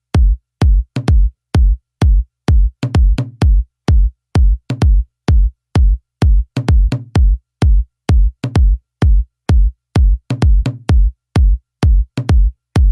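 Dark underground techno: a drum-machine kick drum pounds steadily, close to three beats a second, each hit with a sharp click on top and near silence between hits. Short bass notes sound after some of the kicks.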